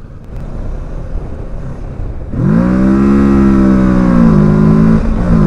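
Kawasaki Versys 650's parallel-twin engine accelerating, growing suddenly much louder and echoing about two seconds in as the bike rides through an underpass. The engine note climbs fast, then drops in pitch twice near the end at gear changes and picks up again.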